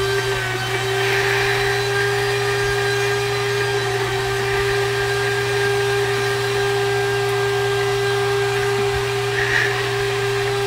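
NutriBullet blender motor running steadily at one pitch, blending chunks of watermelon with the rind on and unpeeled ginger into juice.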